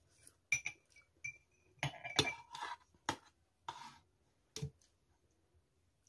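Metal spoons clinking against small glass bowls of momo soup: a series of separate sharp clinks, some with a brief high ring.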